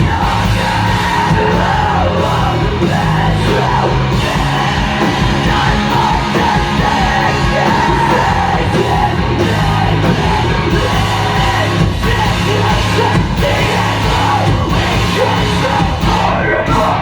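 Live rock band playing loud, distorted guitars, bass and drums, with a singer shouting and yelling the vocals.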